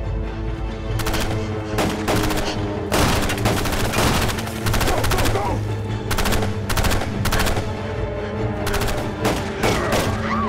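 Gunfire in repeated bursts of several quick shots, one cluster after another, over a dramatic music score of held low notes.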